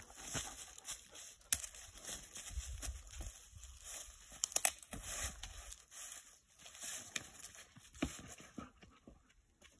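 Irregular rustling, crunching and scraping in dry leaves and gravel, with scattered sharp clicks, from footsteps and a stick working through the leaves.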